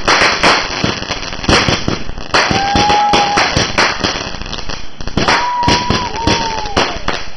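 Vulcan 'Diablo' consumer firework barrage cake firing shot after shot: a fast run of sharp bangs, several a second, with the boom and crackle of the breaks. A whistling tone about a second long sounds once about two and a half seconds in and twice more later.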